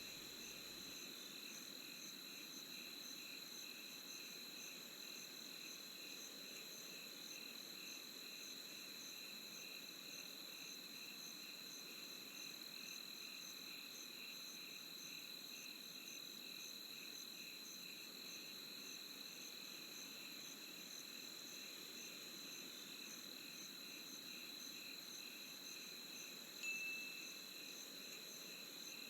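Night insects chirping steadily: one constant high trill layered with rhythmically pulsing chirps. A single brief, louder chirp stands out near the end.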